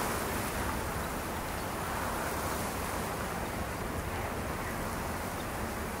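Ocean surf washing in a steady rushing hiss that swells and eases slowly.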